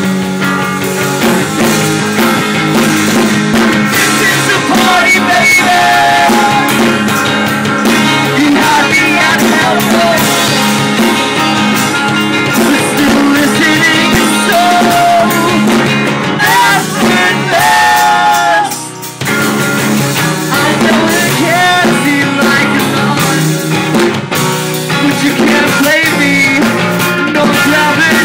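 A rock band playing live, with singing over electric guitar and drums. The music briefly drops about two-thirds of the way through, then comes back in.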